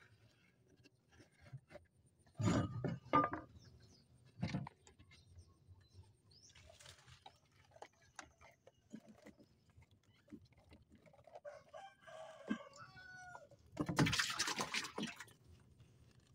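A few sharp wooden knocks as a mesh fish trap is handled in a wooden boat. A rooster crows once, about twelve seconds in. A short, loud, noisy burst follows near the end.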